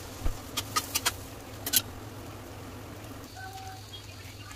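Potato pieces frying in hot oil in an aluminium pan: a low sizzle, with a cluster of sharp pops and clicks in the first two seconds as the pieces go into the oil.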